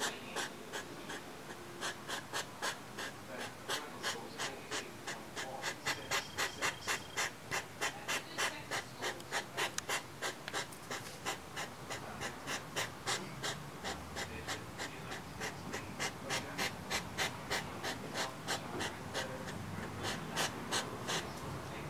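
Courting European hedgehogs huffing and snorting: a long run of sharp, rhythmic puffs, about three to four a second at the fastest. This noisy puffing is typical of hedgehog courtship.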